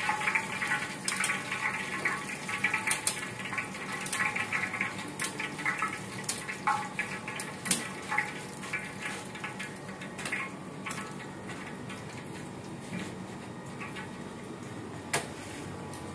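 Hot oil sizzling and crackling in a large wok as deep-fried chicken pieces are lifted out with a wire strainer and tongs, with sharp metal clinks of the utensils against the wok. The sizzle dies down after about ten seconds.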